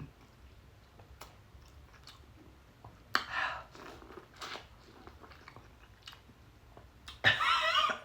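Close-miked eating of a piece of corn: chewing, biting and wet lip-smacking clicks, with a short burst about three seconds in and a louder mouth sound with a wavering pitch near the end.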